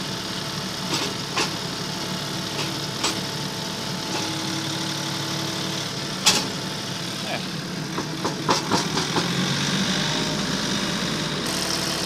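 Compact tractor's engine running steadily while its front-loader grapple carries a log, with scattered sharp knocks. The loudest knock comes about six seconds in, the knocks bunch up a couple of seconds later, and the engine grows louder near the end as the log is lifted onto the sawmill.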